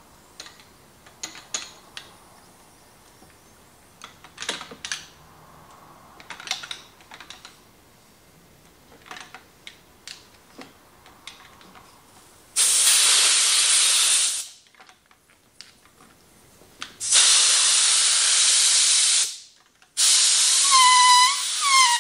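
Scattered light clicks and taps of a handlebar grip being handled and fitted, then a compressed-air blowgun hissing in three blasts of about two seconds each, blowing air under a motorcycle handlebar grip so that it slides onto the bar. In the last blast, air escaping from under the grip gives a wavering whistle.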